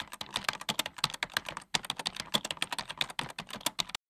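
Keyboard typing sound effect: quick, uneven key clicks with a short pause about one and a half seconds in. It stops abruptly near the end.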